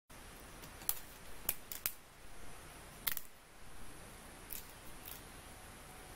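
About seven sharp, irregular snaps and clicks, loudest about one second in and about three seconds in, over a steady faint high hiss.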